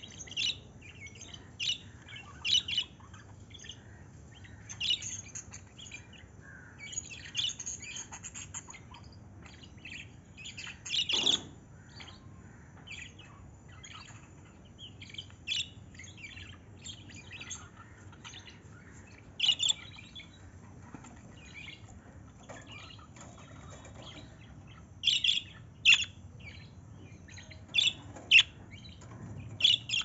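Pet budgerigars chirping and chattering: short, sharp, high chirps and squawks at irregular intervals, a few of them clustered and louder than the rest.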